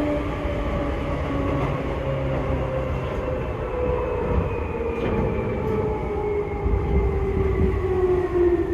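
Seibu 2000-series electric train running, its traction motors and gears whining over the rumble of the running gear. The whine slowly falls in pitch throughout, as the train slows.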